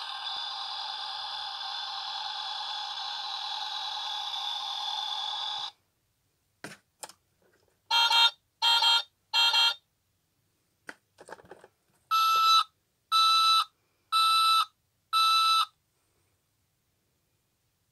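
Electronic sound effects from a battery-powered toy truck's small speaker, set off by pressing the buttons on its roof. A steady electronic noise runs for about six seconds and cuts off suddenly. After a couple of button clicks come three short beeps, then more clicks and four longer, evenly spaced beeps.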